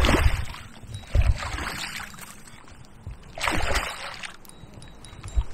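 A small pike splashing and thrashing at the surface as it is drawn into a landing net: a burst of splashing at the start, a short splash about a second in, and a longer bout of splashing about three and a half seconds in, over low rumbling on the microphone.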